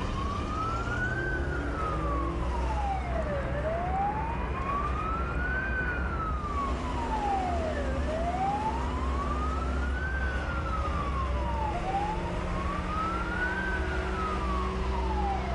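Fire engine siren wailing, its pitch rising and falling slowly, about four full sweeps, with the truck's engine rumbling steadily underneath.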